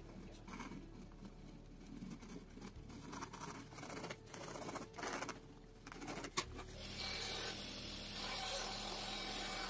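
Pencil scratching in short strokes across a wooden board as a line is marked out. About seven seconds in, a benchtop bandsaw takes over, running steadily as it cuts the board.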